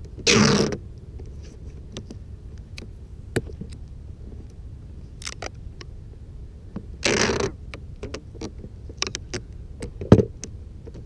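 Hands working the hatch on the deck of a Pro Boat Miss Geico 29 RC boat: two short ripping scrapes, one near the start and one about seven seconds in, with scattered clicks and taps on the plastic and a sharper knock about ten seconds in.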